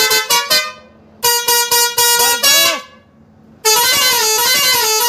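A 12-volt six-pipe pressure horn sounding in three patterns. First comes a string of quick staccato honks. After a short pause it plays a run of held notes that ends in a few swooping slides, and after another pause a continuous warbling tone that wavers up and down.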